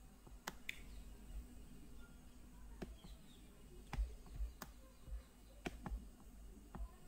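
A computer mouse clicking: a handful of faint, scattered single clicks as on-screen drawing tools are worked.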